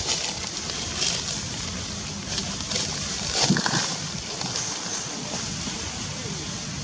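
Outdoor background noise with short crackling rustles, like dry fallen leaves being stirred, a few times; the loudest comes about three and a half seconds in.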